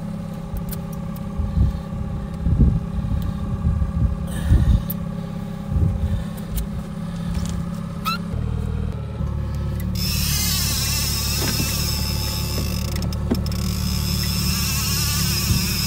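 Boat's outboard motor running steadily at trolling speed, with scattered knocks and bumps of handling on deck; about ten seconds in, a steady high hiss joins the engine hum.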